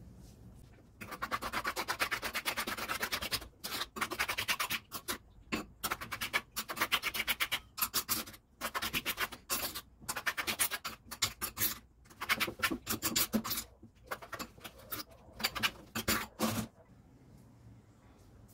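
A plastic spatula scraping and stirring a thick, gritty mix of kinetic sand, glue and toothpaste in a glass bowl: rapid scraping strokes in runs of a second or two with short breaks, stopping near the end.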